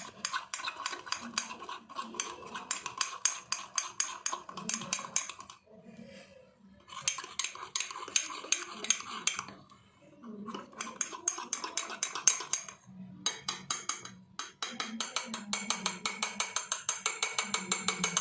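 A spoon stirring in a mug, clinking quickly and repeatedly against its sides in several spells with short pauses between them.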